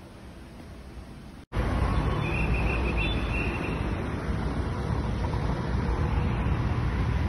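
A faint hiss, then an abrupt cut about one and a half seconds in to a loud, steady outdoor rumble and hiss.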